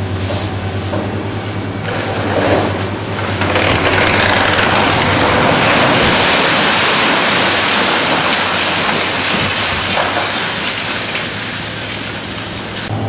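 Demolition of a concrete building: a machine's engine hums steadily while a long, loud rushing noise of concrete and rubble coming down builds about three seconds in and dies away after about ten seconds.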